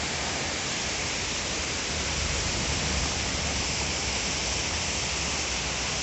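Steady rushing of a waterfall running high with snowmelt, an even hiss of falling water.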